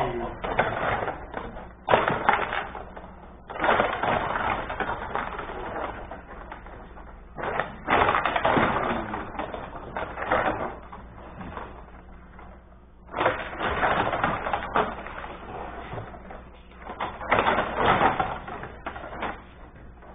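Table hockey in play on a Benej rod hockey table: irregular bursts of rapid clicking and clattering as the rods are spun and slid and the figures hit the puck and the boards, with quieter gaps in between.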